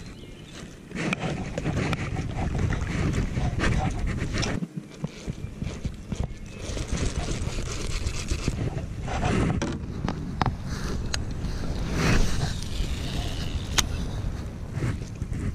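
Low steady noise of wind and water around a fishing kayak, with a few sharp clicks and knocks from handling a baitcasting reel and rod in the second half.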